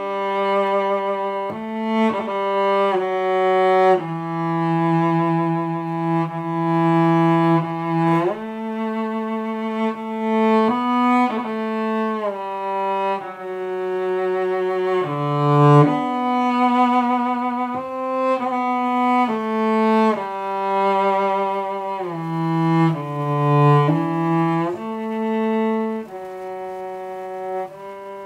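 A cello playing a freely interpreted Christmas carol as a slow melody of long bowed notes, some held for several seconds.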